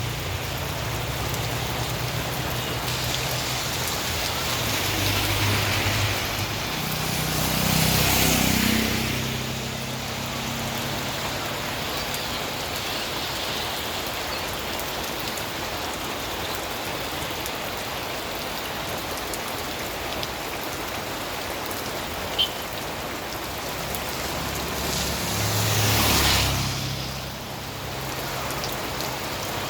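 Steady rain falling. Two vehicles pass on the wet road, one about eight seconds in and another near the end, each swelling up and fading away, and there is a single sharp click a little after twenty seconds.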